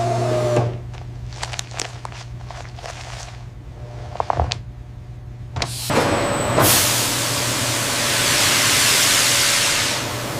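A steady machine hum stops under a second in, followed by scattered clicks. From about six seconds in a loud, steady hiss of escaping air or steam takes over, then eases near the end.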